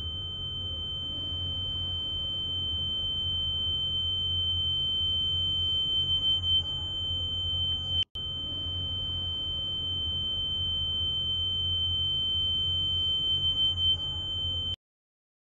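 A steady high-pitched electronic tone over a low hum, played as a repeating soundtrack loop. It breaks off for an instant about eight seconds in, starts again, and cuts off abruptly near the end.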